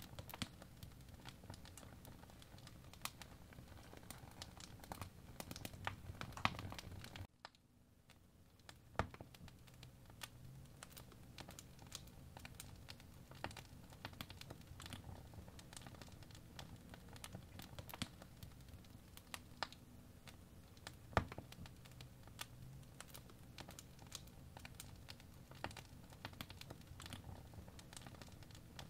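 First-generation Apple Pencil tip tapping and scraping on an iPad Pro's glass screen during sketching, in faint, irregular clicks. The low background hiss drops away abruptly about seven seconds in.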